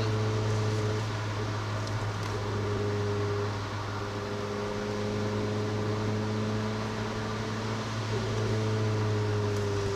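Renault Clio RS 200's 2.0-litre four-cylinder engine heard from inside the cabin, holding steady revs under a light cruise, with tyre and road noise from the wet track. The revs ease slightly near the end.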